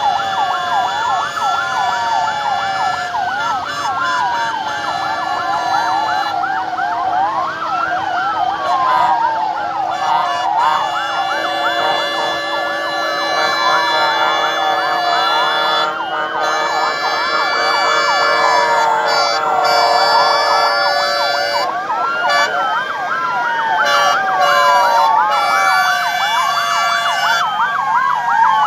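Several escort vehicles' sirens wailing at once, their repeated falling sweeps overlapping out of step, over a few steady tones.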